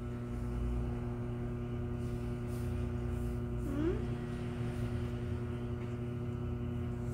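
Steady electrical hum made of a few fixed low tones, with a short rising voice-like sound about four seconds in.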